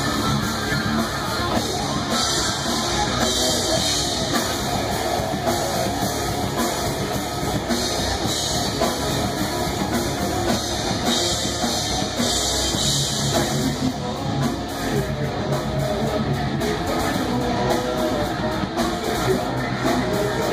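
Heavy metal played by a live band: distorted electric guitars over a drum kit, running without a break.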